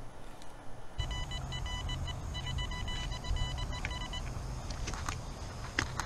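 Metal detector sounding a steady, high electronic tone for about three seconds, broken once briefly, over low rumbling handling noise. A few sharp clicks follow near the end.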